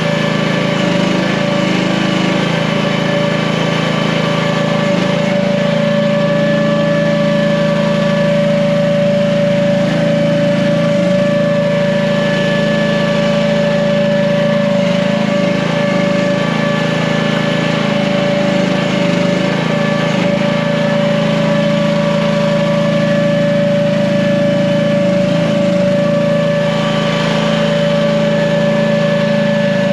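AGT H15 mini excavator's small gasoline engine running steadily at a constant speed.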